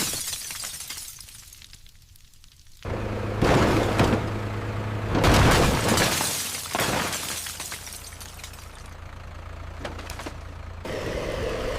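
Crashing and breaking, with glass shattering. A sudden loud crash comes just under three seconds in, followed by sharp hits around four and five seconds, then the noise fades before another din starts near the end.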